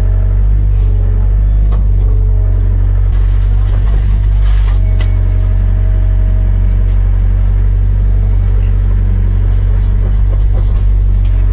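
Diesel engine of a Sunward 90UF excavator running with a steady low rumble, a higher tone coming and going over it as the machine is worked, and a few short knocks, the loudest about five seconds in.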